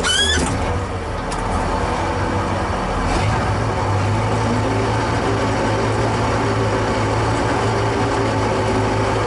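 Tractor diesel engine running steadily, with its revs picking up about three to four seconds in and then holding. A brief rising squeal comes at the very start.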